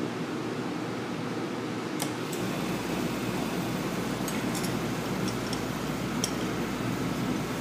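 Sharp crackling snaps of a high-voltage spark arcing between two screwdriver tips held across a Beckett oil burner's ignition transformer terminals, a check of the transformer's output. The snaps come in a cluster from about four seconds in, over a steady whir, and a low hum sets in about two seconds in as the burner is powered.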